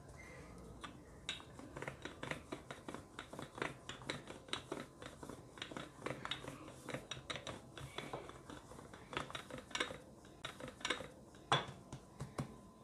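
Light, irregular clicking and tapping, several times a second, as dough is patted flat and rolled out with a wooden rolling pin on a floured stone counter; one sharper knock comes near the end.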